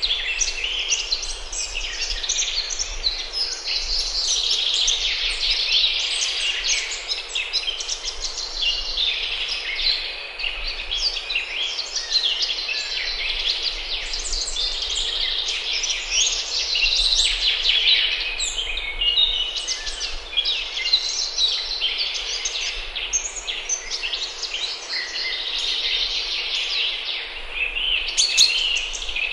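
A dense chorus of many songbirds singing at once, with quick overlapping chirps and trills that never pause.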